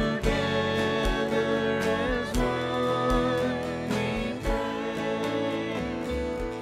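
Gospel-style sung prayer response, voices singing over guitar with a steady drum beat.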